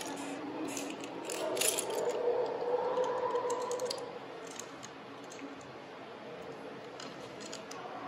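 Plastic Lego bricks clicking and clattering as they are picked from a basket of loose bricks and pressed together, a string of small sharp clicks that is thickest in the first two seconds and sparser after.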